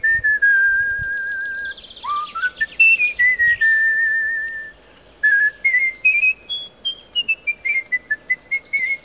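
Artistic whistling (kunstfluiten): a person whistling a melody with vibrato. It has long held notes and upward glides, a brief pause about halfway, and then a climb to a high note followed by a run of short notes stepping downward.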